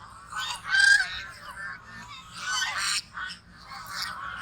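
Geese honking, a run of short repeated calls with the loudest about a second in and a longer, drawn-out honk near the middle.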